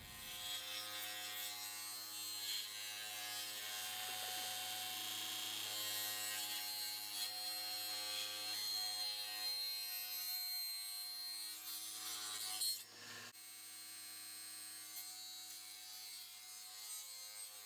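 Table saw running with a steady motor whine while ripping a pallet-wood board lengthwise. About 13 seconds in there is a short louder knock, after which the saw runs on more quietly.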